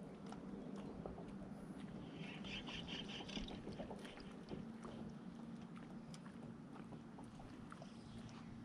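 Faint, steady hum of a bass boat's electric trolling motor, with scattered small clicks. A brief, higher chattering sound comes about two seconds in.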